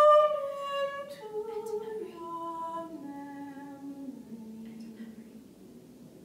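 A lone voice singing unaccompanied: a loud high held note that steps down through a slow descending line of held notes, growing quieter as it falls.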